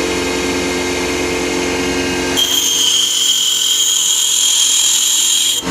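Electric clipper blade sharpening machine running steadily with a motor hum; about two and a half seconds in, a higher grinding whine joins as a clipper comb blade's tip is ground down against it.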